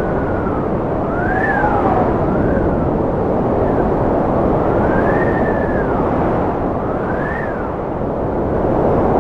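Strong wind blowing in a steady, dense rush, with a howling whistle that rises and falls in pitch every second or two.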